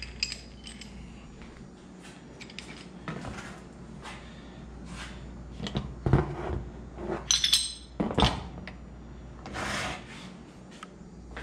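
Metal camshaft bearing caps from a Honda K24A2 cylinder head, bolts still in them, clinking and knocking as they are handled and set down on cardboard over a steel bench. Scattered light clicks, a few sharper ringing clinks between about six and eight seconds in, and a short scrape about ten seconds in.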